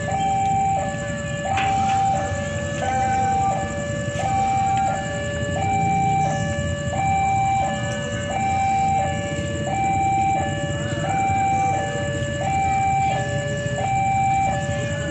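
Railway level-crossing warning alarm sounding: an electronic two-tone signal alternating high and low, each tone lasting about 0.7 s, signalling that a train is approaching.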